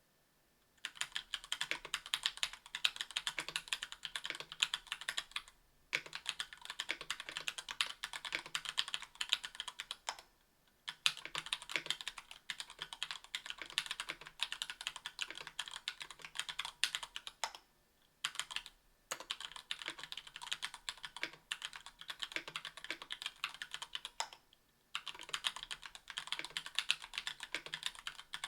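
Fast typing on a 60% aluminium mechanical keyboard (KBDfans Tofu) with Gateron Yellow Ink linear switches, lubed and clipped GMK screw-in stabilisers and GMK keycaps: dense runs of key strokes with short pauses between bursts.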